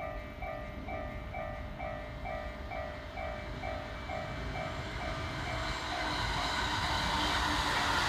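Japanese level-crossing alarm ringing its electronic bell tone, about two strikes a second, as an E231-series electric commuter train approaches and passes over the crossing. The train's running noise of wheels on rails grows louder from about five seconds in and drowns the bell.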